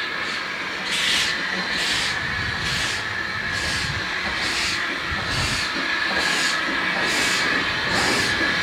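Andrew Barclay saddle-tank steam locomotive working along the line, its exhaust beats coming about two a second from about a second in, over a steady hiss of steam.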